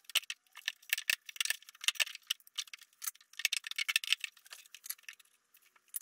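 Loose wooden floorboard pieces clacking and knocking together as they are shuffled and laid into a door frame: a run of quick, light knocks in three flurries with short pauses between.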